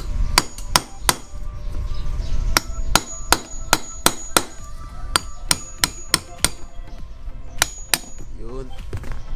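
Hammer blows on metal, about sixteen sharp strikes in quick runs of three to five, some with a short metallic ring, driving a bearing out of a Yamaha DT125 crankcase.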